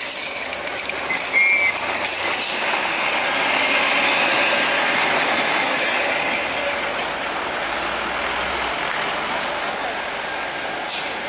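Heavy trucks driving past on a hill road: steady engine and tyre noise, with a faint high-pitched whine midway and a single sharp knock near the end.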